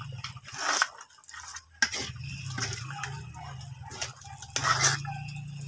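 A metal ladle stirring a simmering stew in a wok, with several scrapes and knocks against the pan; the loudest comes late on.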